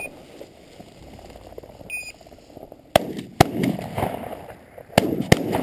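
Four shotgun shots in two quick pairs, the first pair about three seconds in and the second about five seconds in. Two short electronic beeps come before them, one at the start and one about two seconds in.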